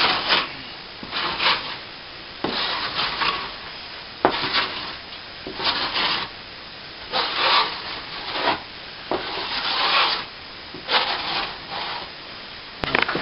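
Steel plastering trowel scraping partly set cornice cement on a plasterboard ceiling patch, about ten rasping strokes roughly one a second. The cement has firmed to the 'hard butter' stage, so it is being scraped back flat.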